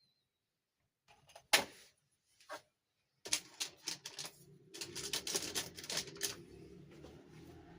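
Hard plastic toy pieces being handled. There is a sharp click about a second and a half in and another a second later, then a run of rapid clicking and rattling.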